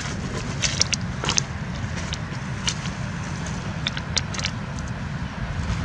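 Footsteps on loose, rounded river cobbles: irregular sharp clacks and crunches of stone on stone as a person steps across them, over a steady low rumble.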